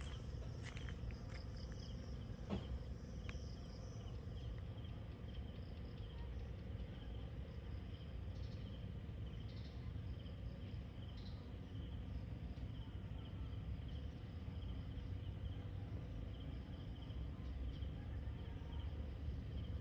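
Insects chirping in a steady, regular pulsing rhythm over a low outdoor rumble, with a few faint clicks in the first seconds.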